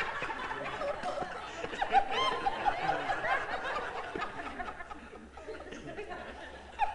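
A congregation laughing and chuckling at a joke, the laughter thinning out after about four seconds.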